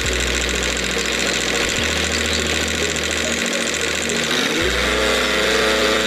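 A motor running steadily, engine-like, with a low rumble that drops out for a few seconds in the middle.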